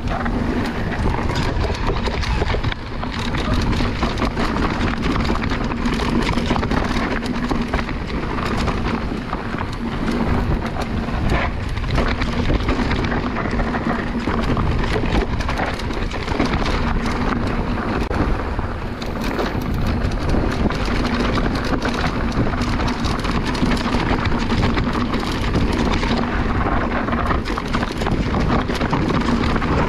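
Mountain bike tyres rolling over a rough, stony trail, with the bike rattling and wind on the microphone. A steady low hum runs underneath.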